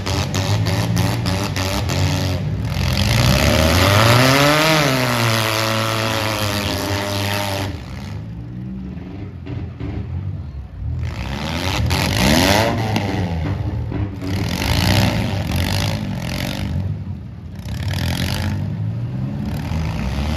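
Demolition derby car engines revving hard and dropping back in repeated surges, with clattering from the cars.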